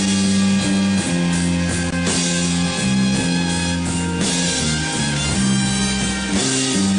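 Live rock band playing an instrumental passage of a song, with electric guitar, bass and drum kit and no singing.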